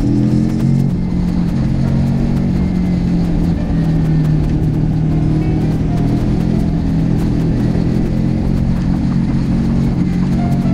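Motorcycle engine running at a steady cruise under way, its pitch holding fairly even, with wind and road rush over it.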